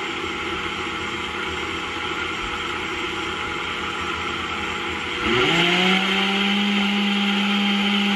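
Vitamix blender motor switched on about five seconds in. It spins up with a quick rising whine, then runs at a steady pitch, blending a thick smoothie mixture.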